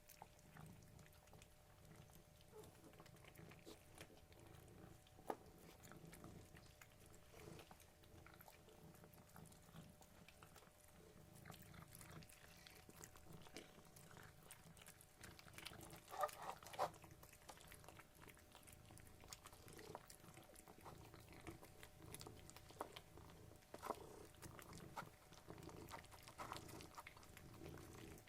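Faint sounds from a cat: scattered small clicks, with a few brief louder sounds about sixteen seconds in.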